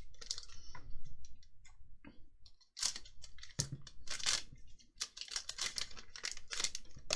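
Magic: The Gathering trading cards being handled and flicked one past another, a string of short swishes and papery snaps.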